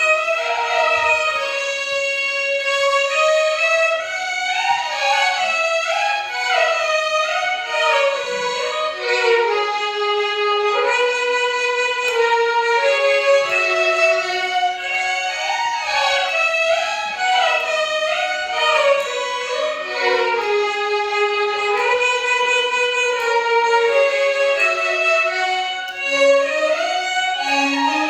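A violin ensemble playing a Carnatic melody in unison, the notes sliding and bending between pitches in gamaka ornaments over a steady held drone note.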